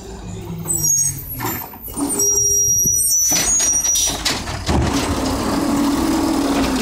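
Mack LE refuse truck pulling up to the curb, its brakes squealing high and thin with air-brake noise as it stops. From about four seconds in, the engine speeds up to drive the Amrep automated side-loader arm's hydraulics as the arm grabs and lifts a cart.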